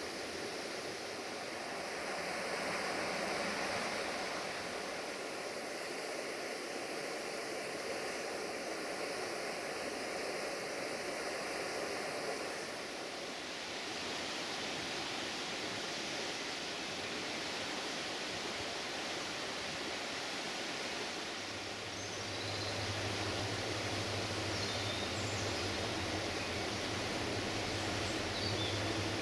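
Steady rushing noise of the river in the canyon. About two-thirds of the way through, a low steady hum joins it: a diesel locomotive still out of sight, approaching along the line.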